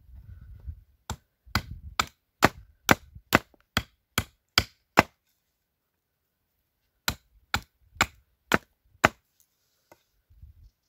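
Axe chopping wood to shape a wooden mallet. A run of about ten sharp, even blows a little under half a second apart, a pause of about two seconds, then five more blows.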